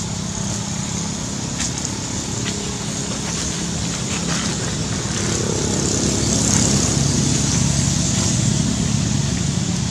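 A motor running steadily with a low hum, swelling slightly about six seconds in.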